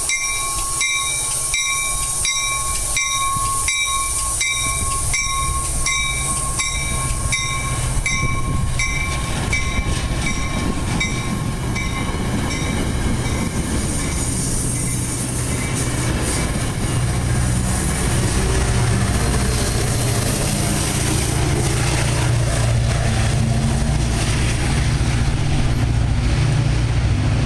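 Metra commuter train on the tracks, with a ringing bell struck about twice a second through the first eight seconds or so. From about halfway the train's low rumble builds and grows louder.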